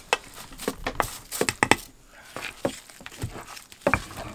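A plastic spatula stirring and tapping a thick flour batter in an enamel bowl, along with a stone pestle knocking on a stone mortar of lamtoro seeds: a run of irregular clicks and knocks.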